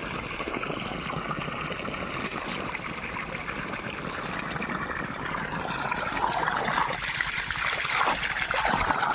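Irrigation water running and trickling steadily, with faint muffled music from a phone speaker that is submerged in the water.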